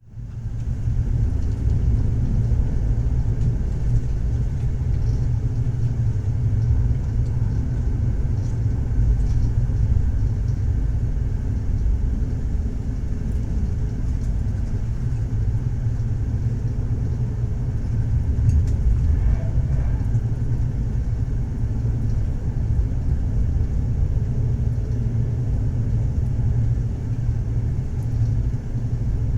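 Moving train, a steady low rumble that fades in during the first second.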